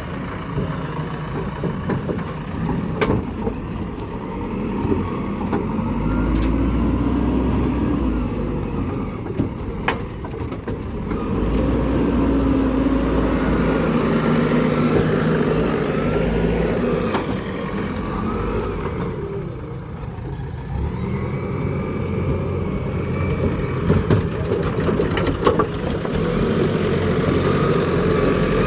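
Diesel engine of a JCB 3DX backhoe loader running, its pitch rising and falling as it is revved up and down while working, with a few sharp knocks.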